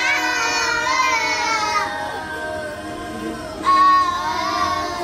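A group of young children singing a song together, with held notes at first, a softer stretch, and a louder line starting about three and a half seconds in.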